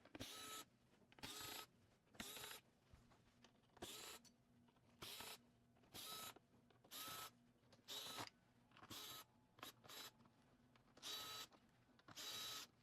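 Small powered screwdriver with a number 2 Phillips bit backing out a row of screws one after another from a metal screen cover. It gives short, faint whirring bursts of steady pitch, about one a second.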